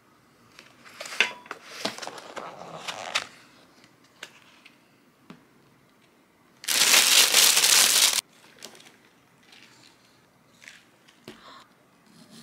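Thin plastic food tray and lid being handled: a run of crinkling and clicking as the lid comes off, then about seven seconds in a louder rustle of plastic lasting over a second. A few light clicks follow near the end as a fork goes into the watermelon cubes.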